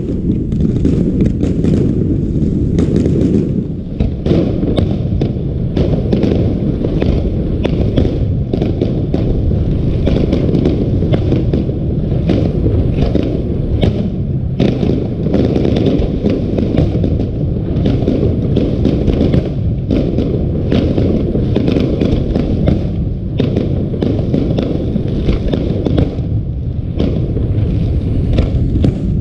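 Aerial fireworks going off in a dense, rapid run of bangs and crackles over a constant low rumble.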